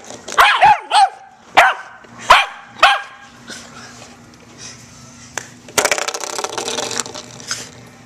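Puppy barking at a spring door stopper: about six short, sharp barks over the first three seconds, then a brief burst of rattling about six seconds in.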